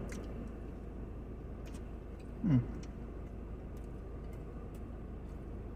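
Faint mouth clicks of a person chewing food, with a short falling "mm" hum about two and a half seconds in, over a steady low hum.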